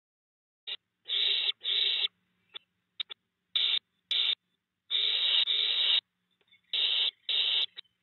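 Barn owl hissing calls: a series of harsh hissing bursts, each about half a second long and mostly in pairs, with a few short clicks between them.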